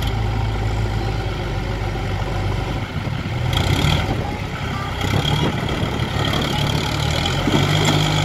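Diesel engines of a John Deere 5042D tractor and a JCB 3DX backhoe loader running under load as the loader pushes the stalled, soil-laden tractor-trolley up a slope. The engine note rises partway through, and a high thin whine joins about three and a half seconds in.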